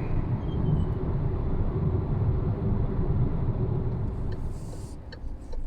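Cabin noise of a moving Geely Coolray: a steady low road and engine rumble that fades about four and a half seconds in as the car slows, followed by a few faint clicks.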